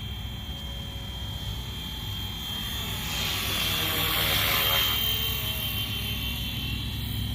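FlyWing FW450 V3 RC helicopter in flight, its electric motor and rotor giving a steady high whine. The sound swells about three seconds in, is loudest shortly after, then eases as the helicopter moves closer and away again.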